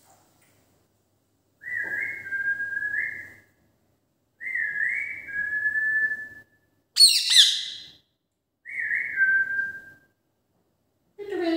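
Indian ringneck parakeet whistling the same two-part phrase three times, each a quick rising note falling onto a held lower note, with one short harsh screech between the second and third phrases.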